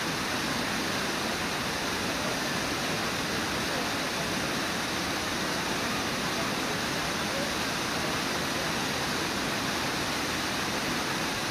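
Water rushing steadily over Brooks Falls, a low, wide river waterfall, making an even, unbroken noise.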